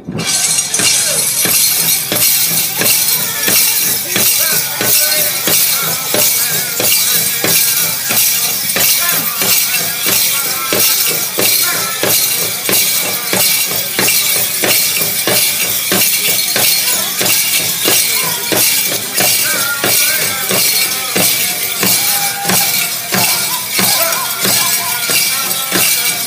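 Powwow drum group playing: a steady, fast beat on a big drum under high-pitched group singing, with a constant jingling of metal bells.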